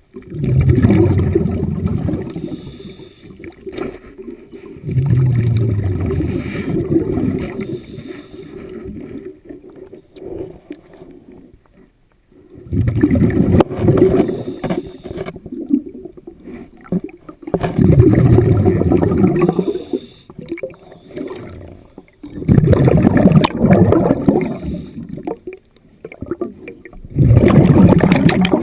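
A diver breathing through a regulator underwater: exhaled bubbles rumble and gurgle in bursts of two to three seconds, about every five seconds, with quieter inhale gaps between.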